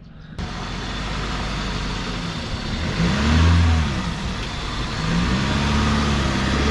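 A 4x4's engine running and revving up twice, each time rising and falling in pitch, with a third rev starting near the end, as the vehicle is driven up onto a tire to break its bead.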